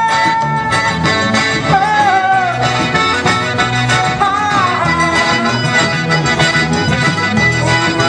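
Forró played live by a small band: a piano accordion carrying the melody over electric bass guitar and a steady zabumba drum beat.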